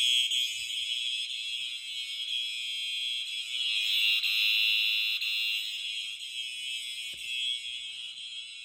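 Fire alarm system horns sounding continuously in alarm after the pull station was pulled. The sound is high-pitched and fades somewhat toward the end.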